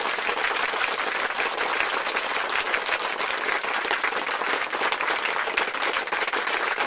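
Crowd applause: many hands clapping densely and steadily.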